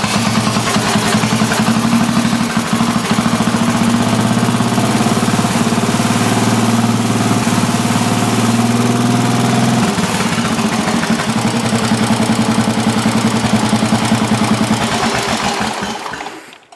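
Cushman Eagle scooter's single-cylinder cast-iron Husky engine running with an even, pulsing beat. About ten seconds in, the beat changes and the separate firing strokes stand out more.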